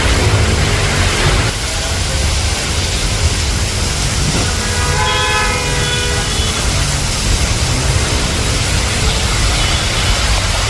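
Heavy rain with a steady low rumble of street traffic and wind on the microphone. A vehicle horn sounds once for about a second and a half, about five seconds in.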